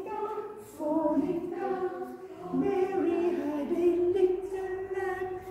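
A group of voices singing a simple song together, each note held briefly at a steady pitch and moving in small steps, as in a children's song.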